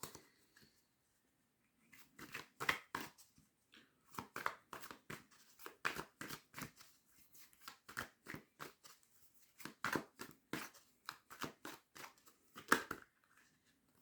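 Tarot cards being shuffled and handled, a quick run of short papery snaps and rustles starting about two seconds in and stopping near the end.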